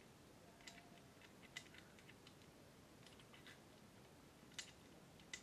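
Near silence with a few faint, scattered clicks and ticks of a small hand tool and metal parts being handled while screws on a 3D printer's frame are being tightened.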